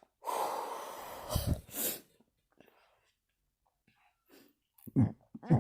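A person burping with the mouth closed. A long rush of breath comes first, then two short, low burps. After a pause, a quick run of short, low burps starts near the end.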